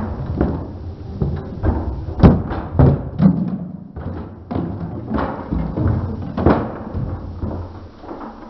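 A toy monster truck knocking a tower of stacking alphabet boxes over: a run of thumps and knocks as the truck hits the boxes and they tumble onto the floor and each other, the loudest a little over two seconds in.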